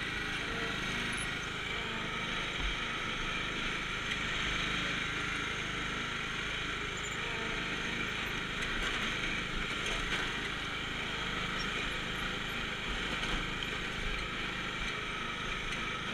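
Riding lawn mower's small engine running steadily while the mower is driven over rough bare dirt.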